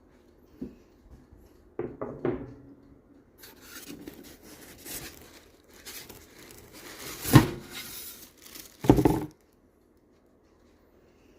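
A toaster oven's cardboard box and packaging being opened and handled: rubbing, scraping and tearing, with two loud thumps about seven and a half and nine seconds in.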